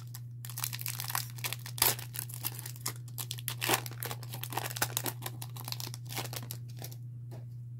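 Foil wrapper of a Pokémon trading-card booster pack being torn open and crinkled: a dense, irregular crackle that thins out near the end. A steady low hum sits underneath.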